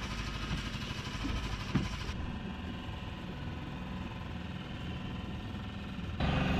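Small boat engine running steadily at low speed, its tone shifting abruptly twice.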